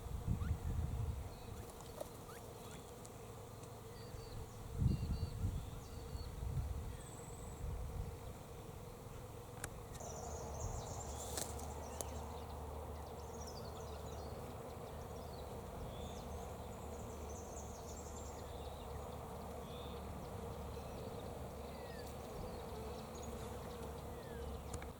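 Steady buzzing hum with short, high bird chirps scattered through, most of them about ten to thirteen seconds in. Low rumbles of wind or handling on the microphone come at the start and about five and eight seconds in.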